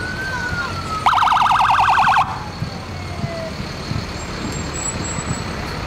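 Fire engine sirens: a wailing siren rises just after the start, then slides slowly down in pitch over about three seconds. About a second in, a loud, rapidly warbling electronic siren blast cuts across it for about a second, over steady low truck engine noise.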